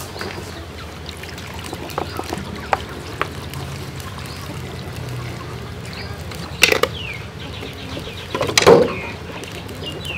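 Water poured from a plastic bottle into a blender jar packed with pandan leaves, over a steady background with poultry calling. Two louder sudden sounds come in the second half, the later one the loudest.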